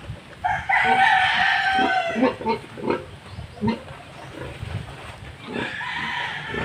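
A rooster crows loudly about half a second in, holding the call for over a second, and a weaker crow follows near the end. In between, the pregnant sow gives a few short grunts.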